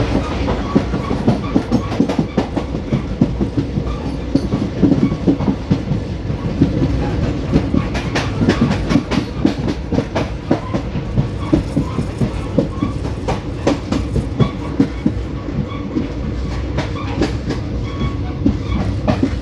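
Wheels of a moving Indian Railways ICF passenger coach clattering over the rail joints, a dense run of sharp clicks over the steady rumble of the running train.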